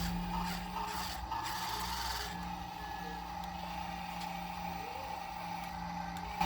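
Small electric gear motors of a remote-control toy excavator whining steadily, with faint rubbing and scraping.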